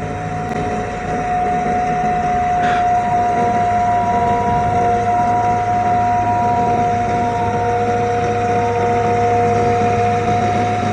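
Excavator running steadily, its low engine hum under a constant high-pitched whine from the hydraulics, with a couple of fainter tones fading in and out.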